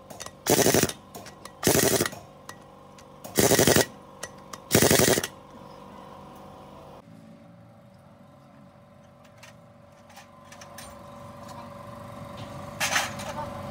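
Pneumatic impact wrench hammering in four short bursts of about half a second each, working on a truck differential carrier. After about seven seconds only a quieter, steady background hum remains.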